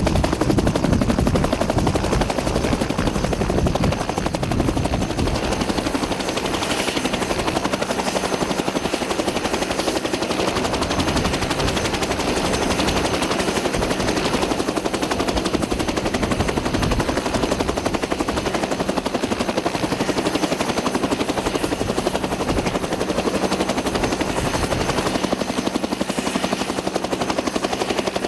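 Aircraft engines running close by: a loud, steady, rapid chopping with a steady hum under it.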